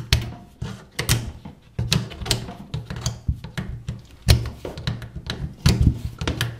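Flat screwdriver prying and tapping at a ring on a water supply pipe to work it off, giving irregular sharp metal clicks and scrapes, about two a second.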